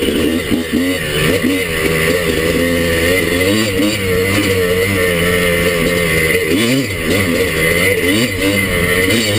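Kawasaki KDX200's two-stroke single-cylinder dirt bike engine running hard under throttle, its pitch rising and falling again and again as the throttle is worked.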